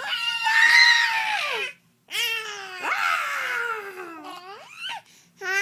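A high-pitched voice giving long, drawn-out wailing cries. Each cry slides down in pitch, with quick upward swoops between them, and there are two short breaks, about two seconds in and near the end.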